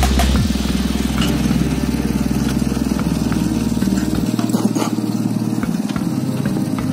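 Motorcycle engine of a homemade rice-field tractor running steadily as the tractor drives along.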